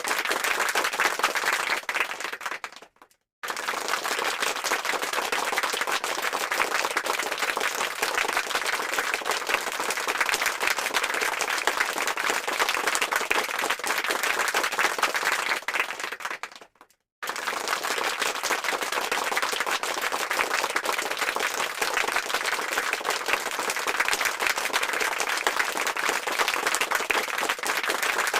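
Applause sound effect: a crowd clapping densely and steadily. It fades out to a brief silence about three seconds in and again about seventeen seconds in, then starts again abruptly each time as the clip loops.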